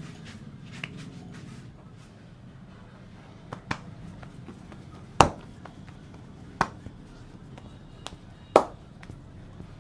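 Hand percussion of a barber's massage: a handful of sharp slaps or claps spaced a second or two apart, the loudest about five seconds in and another near the end.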